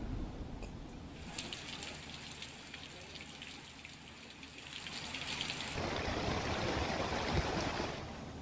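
Heavy rain falling: a steady hiss with a fine patter of drops, growing louder and fuller about six seconds in.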